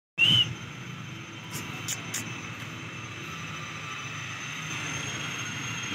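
Steady low engine drone of distant motor noise, slowly growing a little louder. A short, loud high-pitched chirp sounds right at the start, and three faint clicks come about two seconds in.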